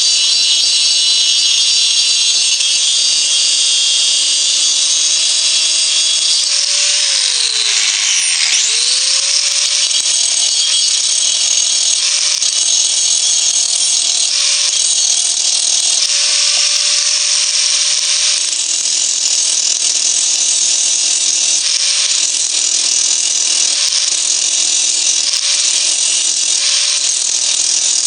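DeWalt angle grinder running, its disc grinding a spot-welded steel tab down to the stainless steel of a pot lid. The motor's whine drops sharply about eight seconds in as it bogs under pressure, then recovers. The grinding hiss comes and goes several times as the disc is lifted and touched back to the metal.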